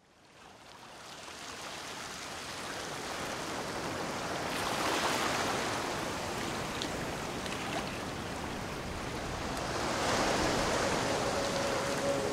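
Small waves washing on the water, a steady rushing noise that fades in at the start and swells about five and ten seconds in. Soft music comes in near the end.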